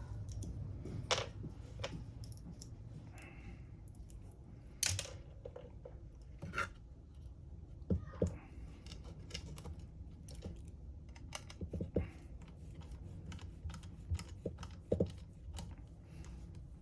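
Small metal screws and 3D-printed plastic parts being handled and set in place: irregular light clicks and taps, a few sharper knocks among them.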